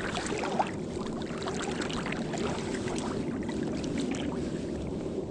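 Steady rush of flowing river water, with small splashes and trickles throughout.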